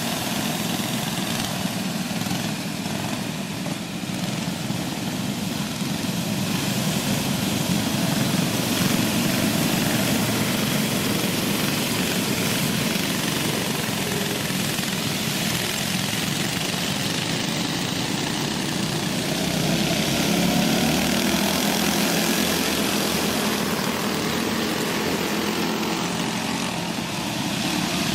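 Go-kart engines buzzing steadily as a pack of karts races around a dirt track.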